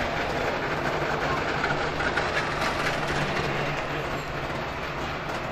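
Trabant two-stroke twin-cylinder engines running steadily as the cars drive off slowly one after another.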